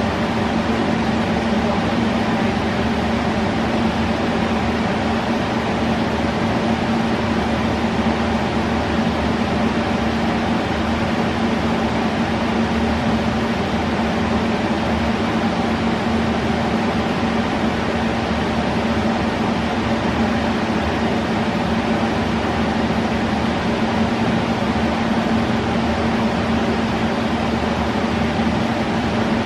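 Steady machine hum with a strong low drone and fainter higher tones over a constant noise.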